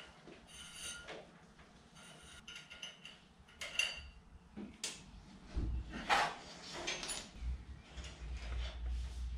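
Scattered metallic clinks and knocks from hydraulic hose fittings and tools being handled on a scissor lift as its lines are disconnected. A few short clinks ring briefly in the first half, with one louder knock about six seconds in.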